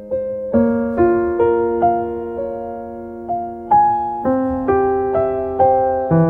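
Slow, gentle solo piano music, single notes and chords struck about twice a second and left to ring and fade.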